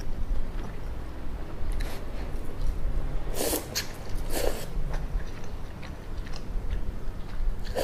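Shin Ramyun instant noodles being slurped and chewed close to the microphone. There are two loud slurps a little past halfway, about a second apart, another right at the end, and chewing in between over a steady low hum.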